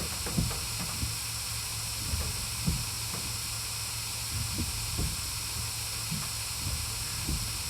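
Steady hiss of rain on a car, over a low hum, with a few faint scattered taps.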